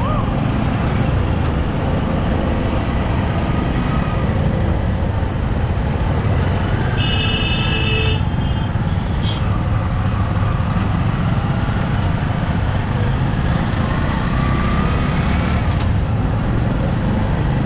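Steady engine and wind noise from a motorcycle riding in slow traffic, heavy at the low end. A vehicle horn sounds for about a second around seven seconds in.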